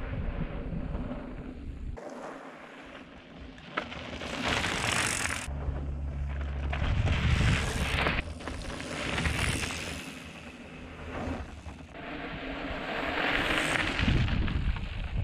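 Mountain bike tyres rolling over loose rocky desert gravel, with wind rumbling on the microphone. The sound swells and fades and changes abruptly several times.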